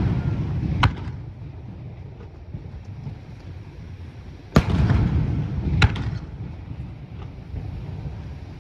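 Aerial firework shells bursting: a bang about a second in, then two louder bangs in the middle, each followed by a low rolling rumble, with faint crackling between them.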